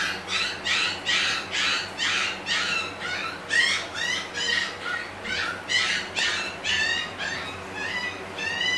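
Puppies squealing over and over, short high-pitched cries repeating about three times a second without a break.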